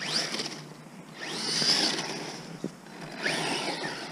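Electric RC monster truck under throttle in snow: the motor whine rises in pitch in three bursts, with the wheels churning snow, and a couple of short knocks in between.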